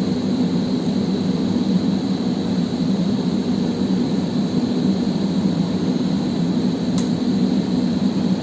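Steady low drone of a running fan or machinery, unchanging throughout, with a single faint click about seven seconds in.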